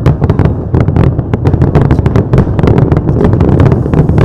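A dense fireworks barrage: many sharp bangs and crackles every second over a continuous heavy low rumble.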